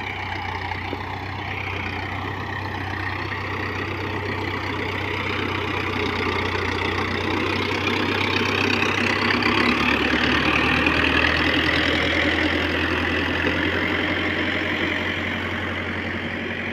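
New Holland farm tractor's diesel engine working under load as it pulls a ridger through soil. It runs steadily, growing louder as the tractor comes close about two-thirds of the way through, dropping slightly in pitch, then easing off.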